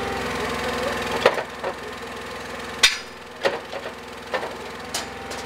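A truck engine runs steadily, then drops away about a second in. A series of sharp knocks and clatters follows, the loudest near the middle, as ride parts are handled on the loaded trailer.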